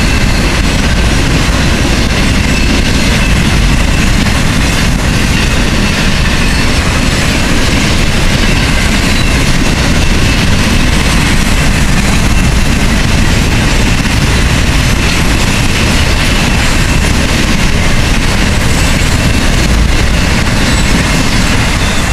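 A high-speed BNSF intermodal freight train of semi-trailers on flatcars passes close by. Its steel wheels on the rails make a loud, steady rush and rumble.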